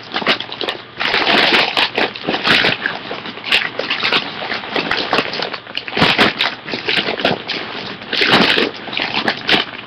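Rustling and crinkling of packaging as squishies are handled and moved about, in irregular bursts with small clicks and knocks.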